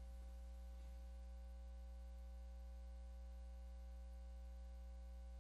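Faint, steady electrical mains hum, with a few fainter steady higher tones over it.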